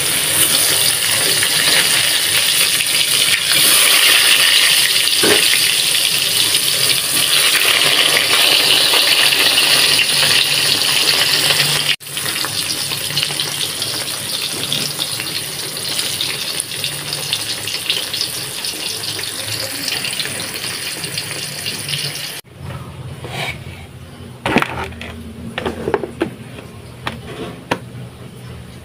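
Hot oil sizzling steadily in a wok as pieces are deep-fried. Near the end the sizzle cuts off, leaving a quieter stretch with a few clicks and knocks.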